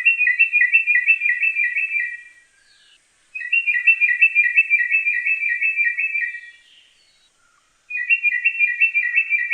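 Sri Lanka drongo (Ceylon crested drongo) calling: three bouts of fast, repeated notes alternating between two pitches, each bout two to three seconds long with short pauses between.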